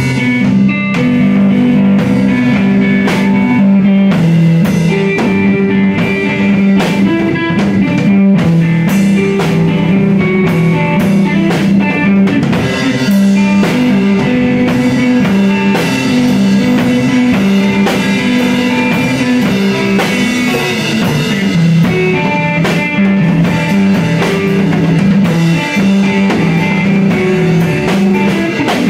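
Instrumental math rock played live on an electric guitar and a drum kit. The guitar picks a repeating riff of notes over continuous drumming with frequent drum and cymbal hits.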